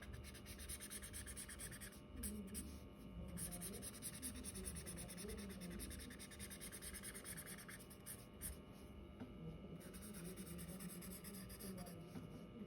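A black felt-tip sketch pen drawing on paper in continuous outlining strokes. It pauses briefly about two seconds in, again in the second half, and once near the end.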